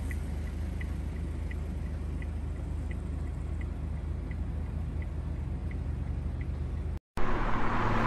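Steady low hum of wind turbines at close range, with faint regular ticks about every 0.7 s. Near the end the sound cuts out briefly and a louder car engine sound begins.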